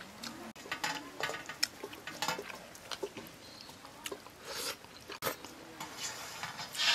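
Someone eating with their fingers: wet chewing and sucking mouth sounds with scattered lip smacks and clicks, and fingers squishing curry on a steel plate.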